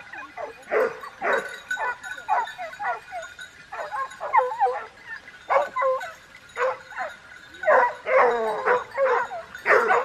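Several hunting dogs barking and yelping in quick, irregular calls, some sliding up and down in pitch.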